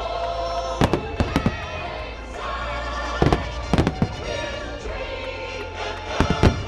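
Aerial fireworks going off in a string of sharp bangs, several in quick pairs, over show music playing throughout.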